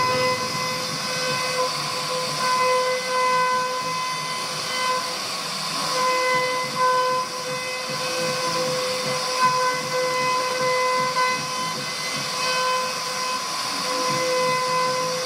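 CNC router spindle running with a steady high-pitched whine over a hiss of cutting, the whine swelling and fading a little as the bit works through wood.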